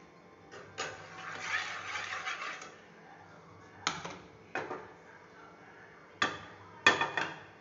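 A frying pan with a little oil in it being tilted and swirled on a gas-stove burner: a rasping scrape of the pan on the grate, then several sharp metal knocks as it is set down and shifted.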